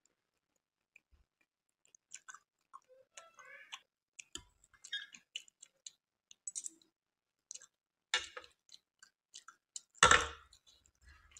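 Close-miked mouth sounds of eating spoonfuls of milky kheer: scattered soft wet smacks, slurps and chewing clicks. About ten seconds in comes the loudest sound, a short clatter as a metal spoon is set down on a plastic tray.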